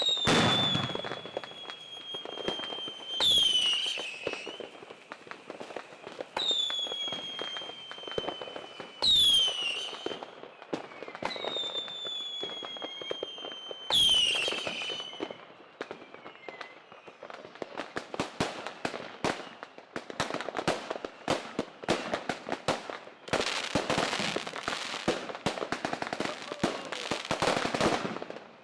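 Fireworks: several long whistles, each sliding slowly down in pitch after a sharp start. A little past halfway they give way to a dense run of rapid crackling pops, as from firecrackers.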